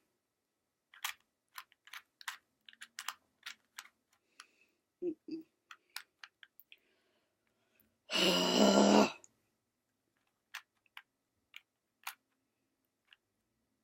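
A plastic Rubik's Cube being twisted, its layers giving irregular sharp clicks. About eight seconds in, a loud vocal sound lasting about a second.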